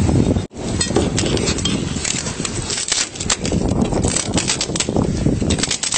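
Close rustling and scraping right at a body-worn camera's microphone, with many irregular clicks and knocks, as hands work with a tool on the trailer's cargo. The sound cuts out for an instant about half a second in.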